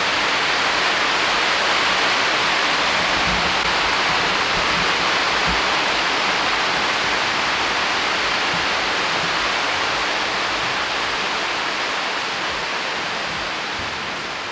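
Super heavy, typhoon-type rain pouring down: a loud, steady hiss of the downpour that eases slightly toward the end.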